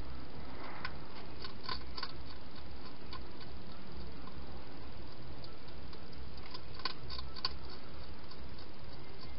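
A hedgehog eating from a bowl: scattered small crunching clicks, in a cluster about a second in and another near seven seconds, over a steady background hiss.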